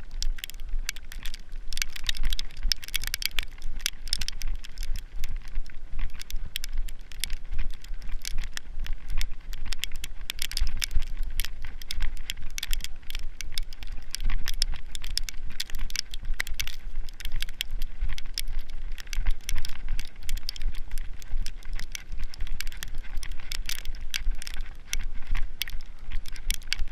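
Dense, irregular crackling and crunching from walking through heavily falling wet snow, with a low rumble underneath.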